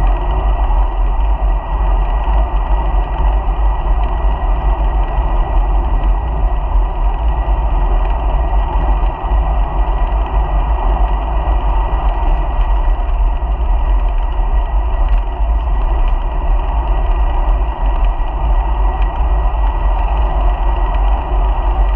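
Wind buffeting the microphone of a bike-mounted action camera while riding: a loud, steady low rumble and rush, with a thin constant whine running underneath.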